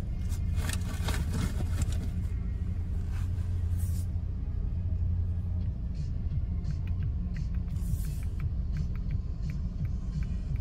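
Steady low rumble inside a car's cabin. During the first few seconds there is rustling from movement, and light clicks are scattered through the rest.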